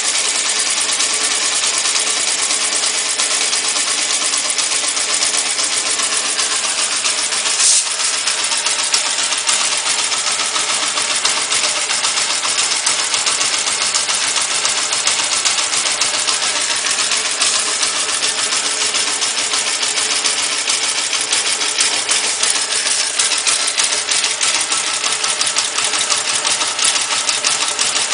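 Cold engine idling with a fast, steady ticking from its valve tappets. The owner asks whether this tappet noise is too loud. The bass is filtered out, so the ticking stands out, with one sharper click about eight seconds in.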